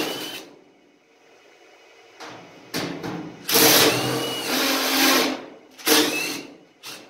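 Cordless drill running in several short bursts, backing screws out of the stove's sheet-metal casing, with one longer run of nearly two seconds in the middle.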